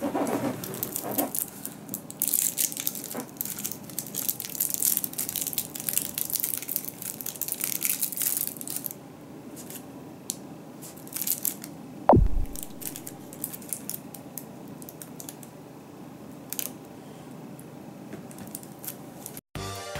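A wrapped chocolate's wrapper crinkling and crackling as it is handled and opened, densest in the first half. Just after twelve seconds in there is a single falling whistle-like tone.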